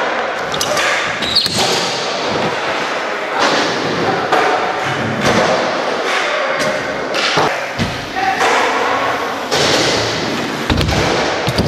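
BMX tyres rolling over plywood ramps, with repeated thuds and knocks as the bikes land and hit the wood.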